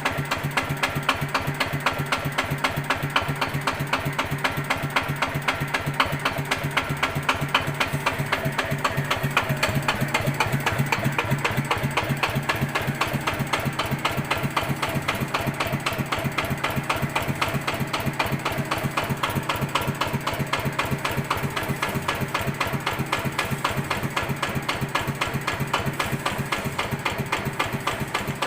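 Yanmar TF105 single-cylinder diesel engine idling very low and steady without stalling, with a regular 'tok-tok-tok' knock on each beat that the owner finds strange and is unsure is normal.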